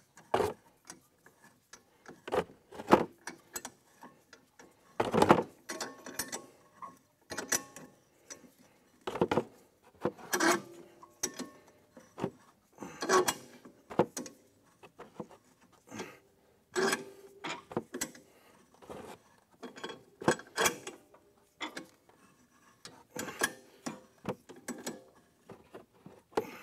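A large C-clamp being cranked down by hand to compress the heavy-duty spring on a Yamaha G16 golf cart's secondary clutch. It makes irregular metallic clicks and short squeaks, about one every second or two, as the clamp turns and the clutch parts shift under load.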